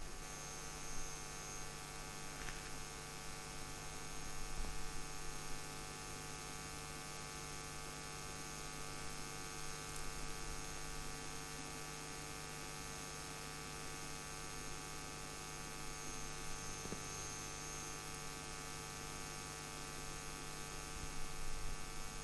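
Steady electrical hum with many even overtones, unchanging throughout, at a low level.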